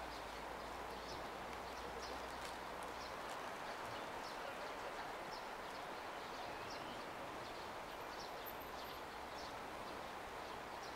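Outdoor ambience: a steady background hum with short, high chirps scattered irregularly throughout.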